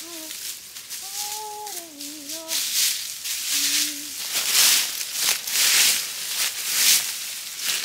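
Dry fallen leaves rustling and crackling in irregular bursts as they are scooped up by hand, loudest in the second half. A faint wavering tone comes and goes in the first few seconds.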